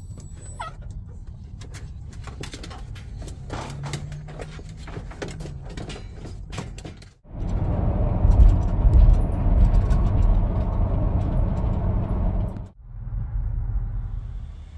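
Car interior road noise on the move: a steady low rumble with scattered small rattles and clicks. After an abrupt change about seven seconds in, it becomes a much louder rushing road and wind noise. It drops back to a moderate rumble after another sudden break near the end.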